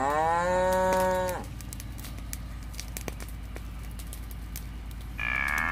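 Cattle mooing: one long call that rises in pitch and then holds, ending about a second and a half in, and a second call beginning near the end. Faint scattered clicks underneath.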